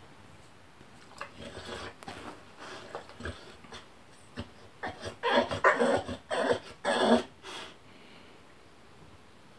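A bulldog making a run of short vocal sounds in play, sparse at first and then coming thick and loudest about five to seven seconds in.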